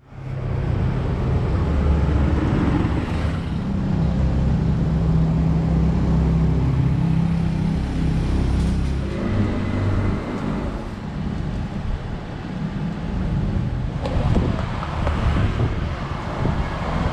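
Street traffic noise: a motor vehicle engine running with a steady low hum for about the first nine seconds, then giving way to general road noise.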